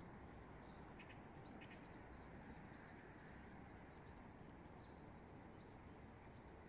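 Faint, scattered chirps of small birds, with a few sharp ticks, over a low steady background rumble.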